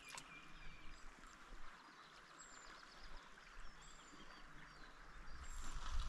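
Mountain river water rushing steadily, with short high bird chirps scattered throughout. A brief click comes right at the start, and low-pitched noise builds up near the end.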